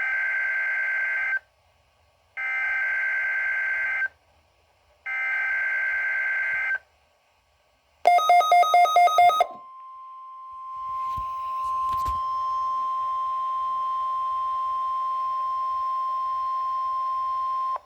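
NOAA Weather Radio Required Weekly Test alert: three bursts of the SAME digital header, a warbling two-tone data screech about a second and a half long, each separated by a second of silence. Then a second or so of rapid pulsed beeps, followed by a steady single tone near 1 kHz, the warning alarm tone, lasting about eight seconds with static hiss rising in behind it.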